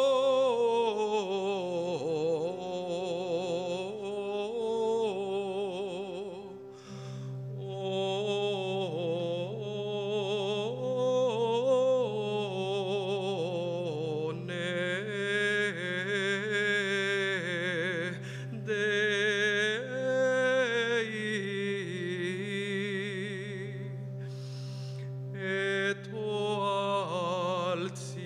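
Solo male voice singing a slow, unaccompanied-style melody with wavering vibrato and gliding ornamental turns on long held notes. A steady low drone comes in about seven seconds in and sounds beneath the voice from then on.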